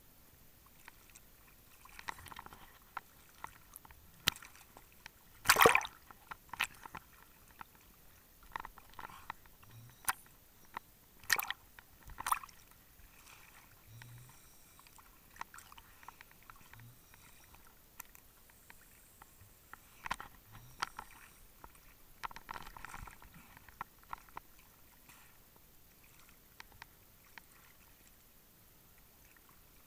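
Choppy lake water sloshing and splashing at the waterline against the camera, with irregular sharp knocks and taps, the loudest about five and a half seconds in.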